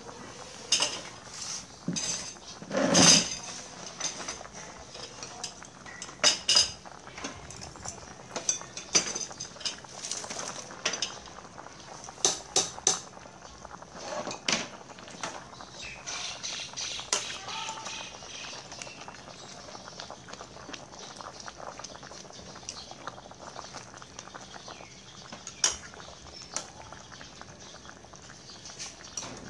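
Metal utensils clinking and knocking against a stainless steel pot and dishes in irregular clinks, loudest about three seconds in, over the faint steady bubbling of broth simmering in the pot on a portable gas burner.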